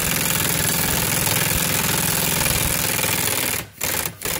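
Impact wrench hammering on the rusted 16 mm nut of the rear control arm link, whose stud is held from spinning by a clamped vise grip. The hammering stops about three and a half seconds in, and a few short rattles follow.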